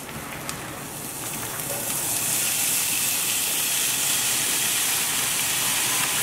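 Chopped bacon sizzling as it is poured from a bag into a hot frying pan. The hiss builds over the first couple of seconds as more bacon lands, then holds steady.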